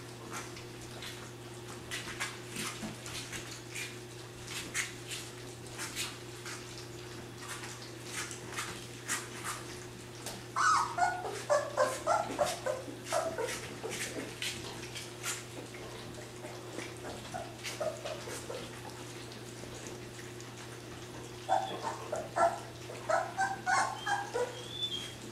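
Three-week-old Labrador puppies eating gruel from shallow pans, with many small wet clicks and smacks of lapping. Two bursts of rapid, high-pitched puppy whining and yelping come about ten seconds in and again near the end. A steady low electrical hum runs underneath.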